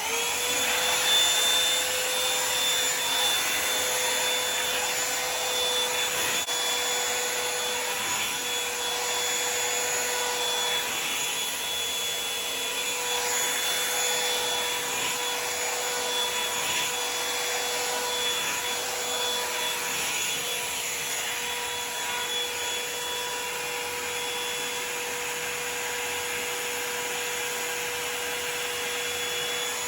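Revlon One Step Volumizer hot-air brush dryer switched on and running on high: a steady rush of blowing air with a steady motor whine.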